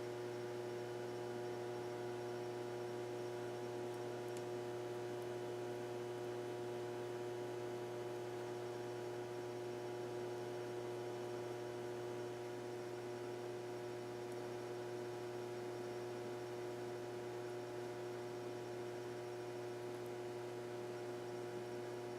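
A steady, unchanging hum made of several fixed pitches, with a faint hiss underneath.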